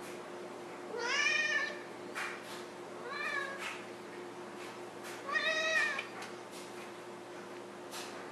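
Domestic cat meowing three times, a couple of seconds apart; the first and last calls are longer than the short middle one. A few faint taps come in between the calls.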